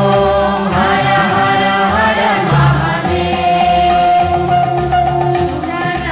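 Devotional Hindu Shiva bhajan: a sung melody with instrumental accompaniment, holding one long note about halfway through, over a steady drum beat.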